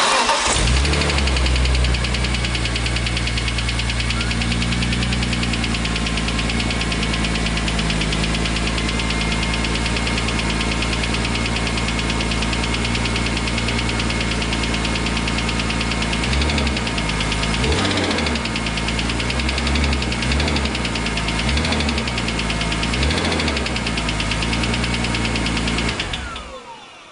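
BMW E46 M3's S54 straight-six engine fires up and idles with a knocking noise, then is revved in several short blips in the second half before it is shut off near the end. The knock developed after hard track driving; its cause is not stated.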